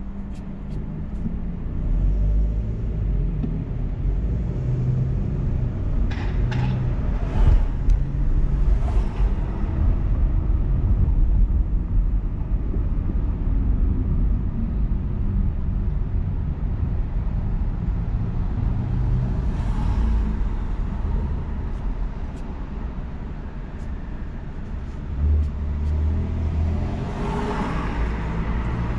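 Car driving slowly through city traffic, heard from inside the cabin: a steady low engine and road rumble, with a few brief knocks about six to nine seconds in. Near the end an oncoming car's passing adds a rising swell.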